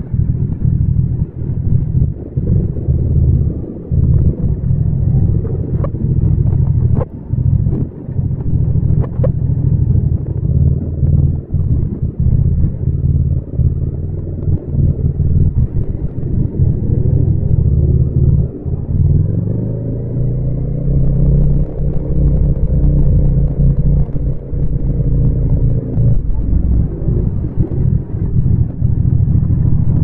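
Yamaha MT-07's parallel-twin engine and exhaust under way, a loud, deep rumble that rises and falls with the throttle. About nineteen seconds in, its pitch climbs as the bike accelerates, then holds steady.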